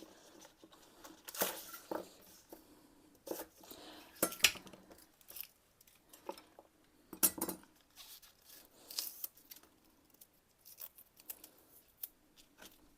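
Irregular clicks and knocks of kitchen utensils and dishes as green onions are cut and added to a salad.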